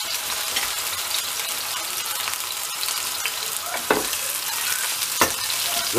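Broth-soaked bread slices sizzling steadily as they fry in oil in a nonstick pan. Two sharp clicks come about four and five seconds in, as another slice is laid in with metal tongs.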